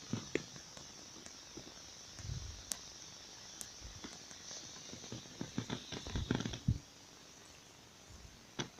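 Quiet outdoor ambience with scattered faint clicks and knocks from handling the camera, a low thud about two seconds in and a run of small knocks about six seconds in as the view is turned.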